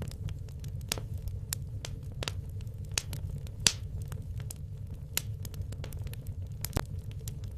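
Wood logs burning in a fireplace: irregular sharp crackles and pops over a steady low rumble, the loudest pop about halfway through.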